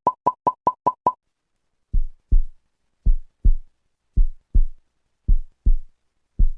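Electronic intro music: a quick run of seven short high beeps, then a low double thump repeating about once a second, like a heartbeat.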